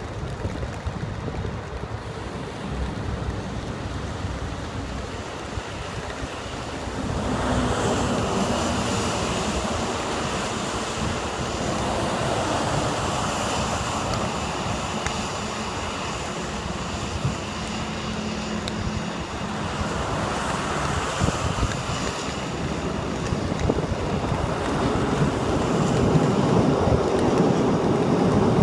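Road traffic hissing on rain-wet streets, with an electric subway train's running noise growing louder toward the end as it passes close by on the elevated track.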